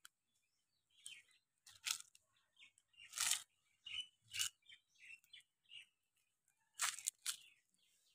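Quiet crunching and rustling of dry leaf litter in about a dozen short, irregular bursts.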